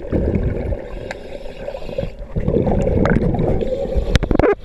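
Water gurgling and sloshing around an underwater camera moving just below the sea surface, with a few sharp knocks near the end.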